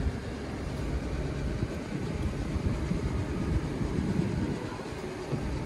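Toyota Calya's engine idling, heard from inside the cabin as a low, uneven rumble.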